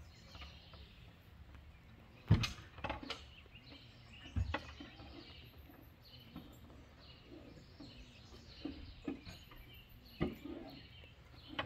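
A few sharp knocks and clanks from hand-tool work in a boat's engine bay while a Volvo Penta 5.7 engine is being freed for removal. The loudest comes about two seconds in and the last near the end. Birds chirp faintly in the background.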